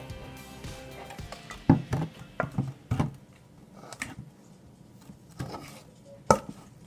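A utensil stirring thick slime in a bowl, knocking and scraping against the bowl in irregular clacks, the loudest about six seconds in.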